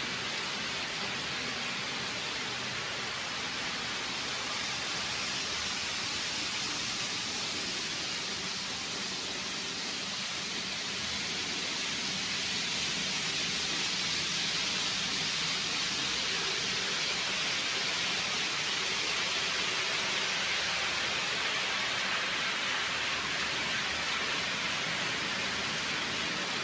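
Steady hiss of noise with no tone or rhythm, slightly louder from about twelve seconds in.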